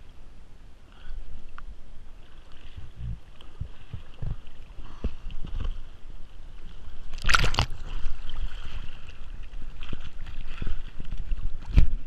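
Fast river current rushing and sloshing right at a camera held at water level. Low knocks of water strike it throughout, with one loud splash about seven seconds in.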